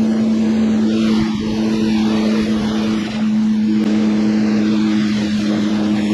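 Sea-Doo GTX personal watercraft's engine running at a steady pitch under way, over a constant rushing hiss of water and wind.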